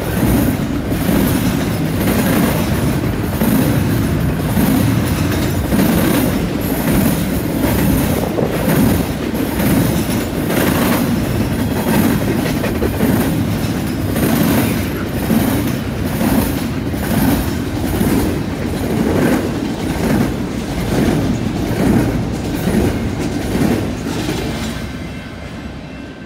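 Double-stack intermodal container train rolling past at speed: steel wheels clicking in a steady rhythm over rail joints and a junction switch. The sound fades near the end as the last cars go by.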